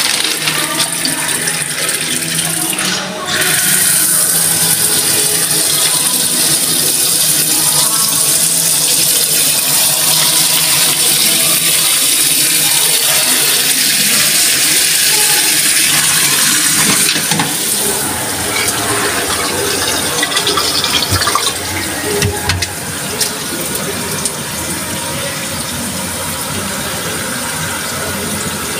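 Pull-down kitchen faucet spraying water into a stainless steel sink, a steady hiss and splash of running water. From a little past halfway it becomes quieter as the water goes down the drain through the plastic trap under the sink.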